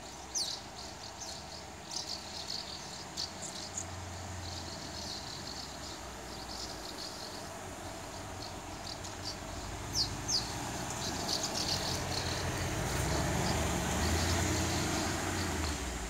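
A flock of small birds flying overhead, giving many short, high-pitched calls, some sliding down in pitch. A low background rumble grows louder over the last few seconds.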